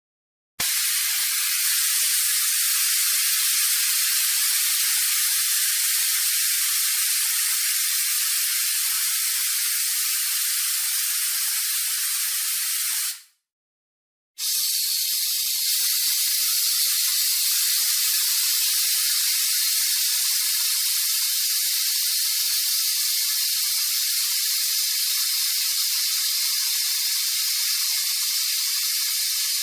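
Air hissing steadily out of a deflating car tyre. It runs in two long spells, broken by about a second of silence roughly halfway through.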